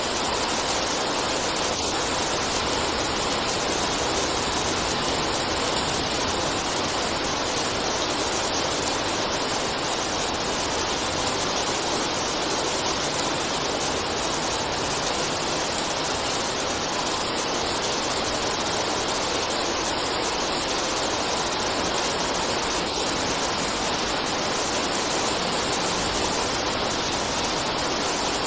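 Steady, dense rain, an even wash of noise with no single drops standing out and no change in strength.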